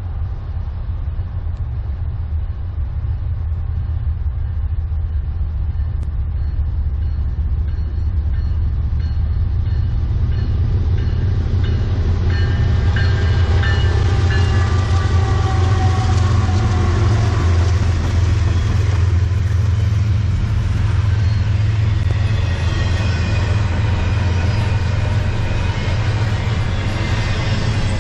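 A freight train's lead BNSF diesel locomotives approach and pass close by, their deep engine rumble growing louder up to the middle. Then comes the steady roll and rattle of intermodal well cars carrying containers over the rails. The last of a locomotive horn fades out in the first few seconds.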